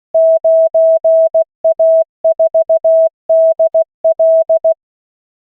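Computer-generated Morse code from the LCWO online trainer at 16 words per minute: a single pure tone keyed into dots and dashes, sending one callsign for copying practice. It stops about three-quarters of the way through.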